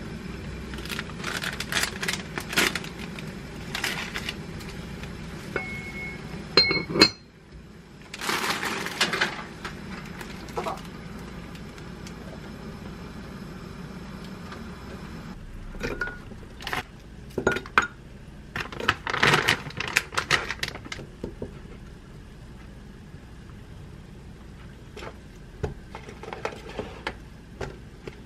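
Home cooking sounds: plastic food packaging crinkling, a pot and its lid clinking on the stove, and green onions handled on a wooden cutting board. A steady low hum sits under the first seven seconds and cuts off suddenly, and two short high tones sound around six and seven seconds in.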